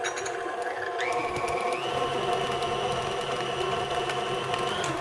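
KitchenAid tilt-head stand mixer running, its flat beater creaming softened butter with icing sugar in the steel bowl. The motor's steady whine steps up in pitch about a second in and again shortly after, as the speed is raised.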